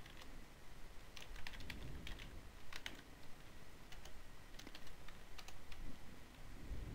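Quiet typing on a computer keyboard: irregular runs of keystrokes with short pauses between them.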